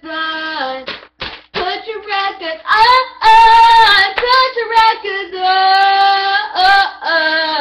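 A girl singing a cappella, one voice holding long notes, loudest in the middle.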